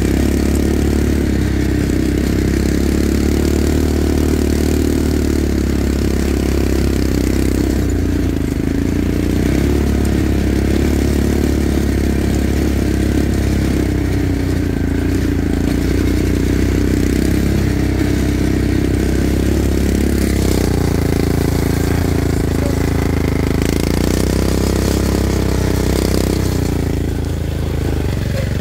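ATV (quad bike) engine running steadily while being ridden, its note wavering slightly.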